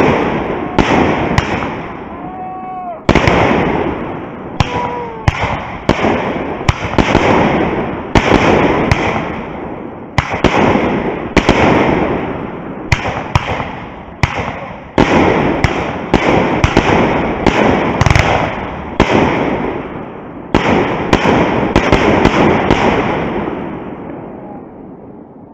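Fireworks going off in quick succession: dozens of sharp bangs, about one or two a second, each trailing off in a rumbling, crackling decay, dying away near the end.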